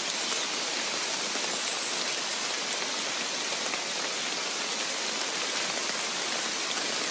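Steady rain falling, an even, unbroken hiss of drops with no single sounds standing out.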